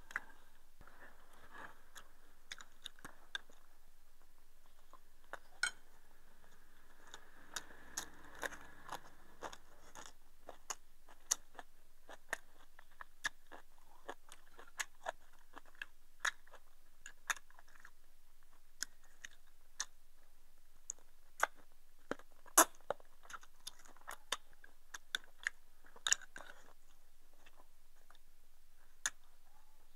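A person eating a rice meal with chopsticks: quiet chewing and crunching close to the microphone, broken by many irregular sharp clicks and taps of chopsticks against a rice bowl.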